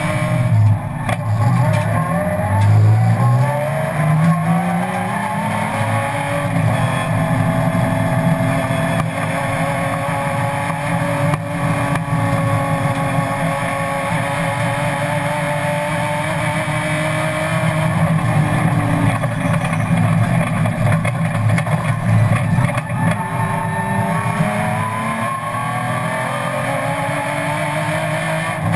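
BMW M3 race car's engine heard from inside the cockpit under hard acceleration. Its pitch climbs over the first few seconds, holds high, dips briefly around two-thirds in, and climbs again near the end, over steady road and wind noise.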